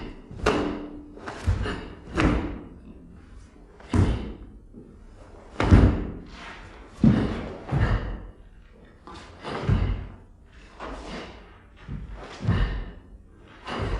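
Karate kata Jion being performed: about a dozen sharp thuds and snaps at uneven intervals, from feet stamping on the floor and the gi snapping with each technique. Each strike trails off in a short echo.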